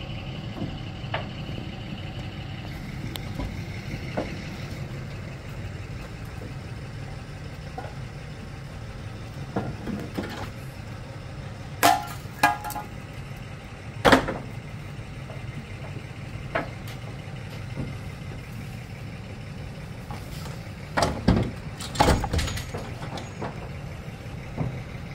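Vehicle engine idling steadily under a handful of sharp metallic knocks and clanks, a cluster about twelve to fourteen seconds in and more a little before the end, from work on the car-hauler trailer and the car loaded on it.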